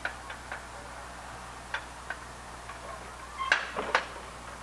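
Sharp metallic clicks and clanks, the two loudest near the end about half a second apart, with lighter clicks before them: a lower-quadrant semaphore signal's arm being pulled down to clear by its wire.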